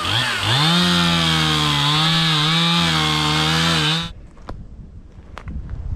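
Stihl two-stroke chainsaw running at high speed while cutting, its engine note dipping briefly near the start and wavering under load. It cuts off abruptly about four seconds in, leaving wind noise on the microphone and a few clicks.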